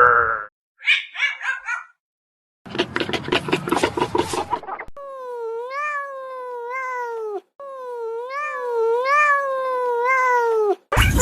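A run of animal calls: short choppy calls, then a rough, pulsing call, then two long drawn-out cat meows of over two seconds each that waver up and down in pitch. Another loud, rough animal call starts just before the end.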